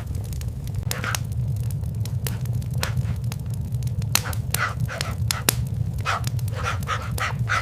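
Fireplace crackling with sharp snaps over a steady low rumble, while a dog pants audibly a few times, most of them near the end.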